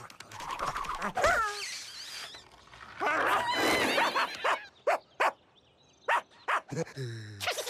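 Cartoon animal voices: a pug's short whining yelps about a second in, then high-pitched raccoon chattering in the middle, followed by a few sharp clicks.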